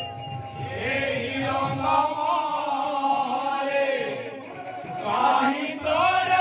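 Odia kirtan: a group of voices chanting a devotional refrain together over musical accompaniment.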